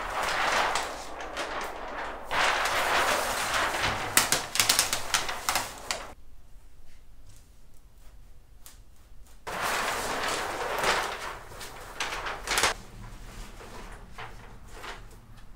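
Clear plastic template sheet crinkling and rustling as it is lifted and spread by hand, with sharp crackles. It comes in two spells, the first about six seconds long, then after a quieter pause a shorter second one, with softer rustling after.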